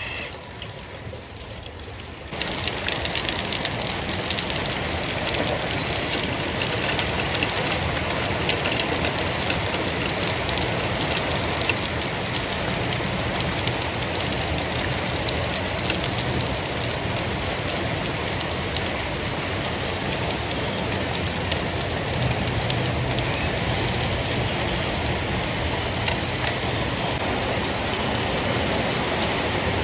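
Heavy rain pouring onto wet paving: a steady, even hiss that comes in suddenly about two seconds in.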